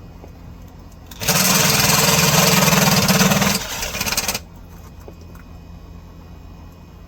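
A power tool runs hard for about three seconds with a rapid rattling rhythm, eases off, gives a short last burst and stops. Under it is a steady low hum.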